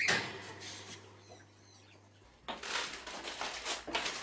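A guinea pig's short high squeal, then faint high squeaks. About two and a half seconds in, rustling and clattering as a wire cage is carried.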